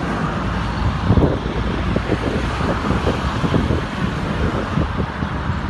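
Truck engine running steadily under motorway traffic noise, with wind gusting on the microphone through the middle seconds.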